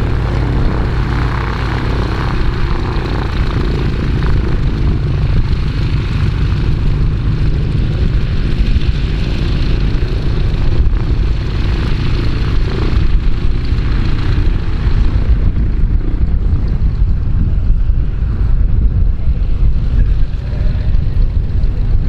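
Boeing Stearman biplane's radial engine running at taxi power, propeller turning, as the aircraft taxis past. The sound grows duller about two-thirds of the way through as the biplane moves away.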